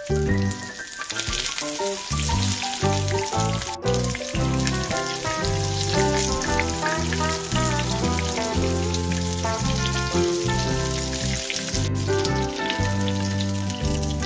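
Breaded chicken-and-potato patties frying in shallow oil in a nonstick pan, a steady sizzle. Background music with a bass line plays throughout.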